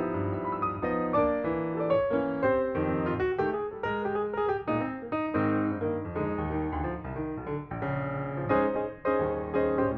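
Background piano music, a busy run of struck notes.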